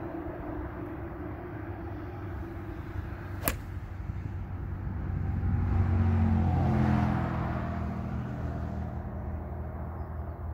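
A 7 iron strikes a golf ball off a hitting mat: one sharp click about a third of the way in. Under it runs a steady low engine rumble, which swells in the middle into a louder drone that falls in pitch, as a vehicle passes.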